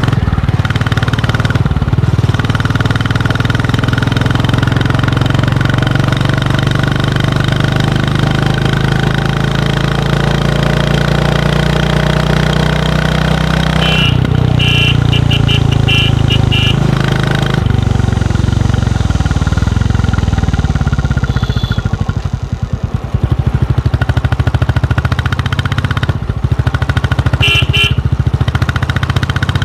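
Royal Enfield Classic 350's single-cylinder engine running through its stock exhaust while riding, a steady low beat. About two-thirds in the engine eases off and the beat slows and stands out more; clusters of short high beeps sound in the middle and near the end.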